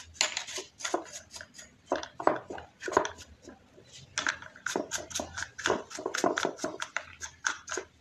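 Irregular clicks, taps and light clatter of hard plastic fan parts and small tools being handled on a workbench, several a second.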